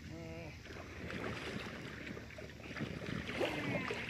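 Water sloshing and splashing around an inflatable PVC kayak as a man climbs into its rear seat, with bumps against the hull and a few short squeaks, one just after the start and more near the end.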